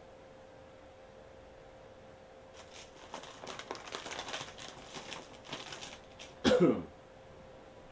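Irregular rustling and crinkling handling noise for a few seconds, then a short, louder sound that drops in pitch, over a faint steady hum.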